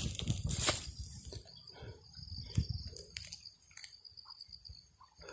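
Insects trilling in a steady high-pitched drone, with rustling footsteps in dry grass and leaf litter during the first second.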